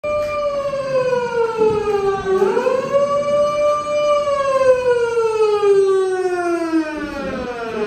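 A siren wailing in long, slow pitch sweeps. It falls for about two seconds, swoops back up, then sinks slowly and steadily to the end.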